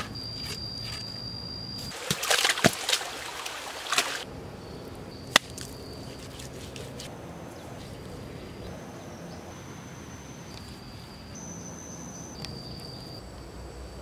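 Hand work with earth and wet clay: rough scraping and digging noises about two seconds in and a single sharp knock a little later. Under it runs a steady high whine that shifts pitch a few times.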